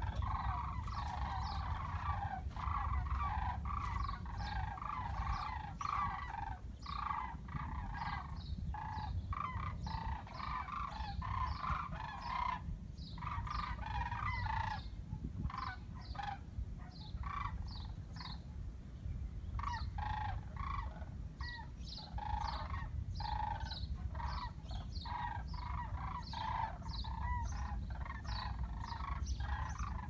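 A flock of sandhill cranes calling in flight overhead: many overlapping calls, nearly continuous, over a low rumble.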